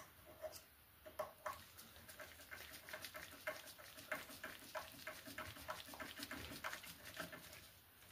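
Dog panting faintly, a quick run of short breaths, several a second.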